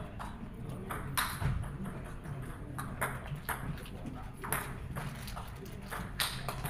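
Table tennis ball clicking: short, sharp, irregularly spaced ball bounces and paddle hits as a point is served and played, over a low murmur of voices in the hall.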